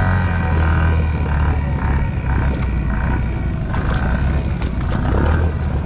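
ATV engine running at steady revs while the machine wades through deep mud water.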